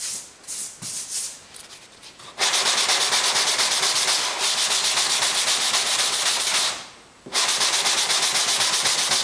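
180-grit sandpaper on a hand sanding block rasping over a fibreglass panel repair, feathering the patch into the surrounding fibreglass. A few light scuffs come first, then quick, even back-and-forth strokes from a couple of seconds in, with a brief pause about seven seconds in.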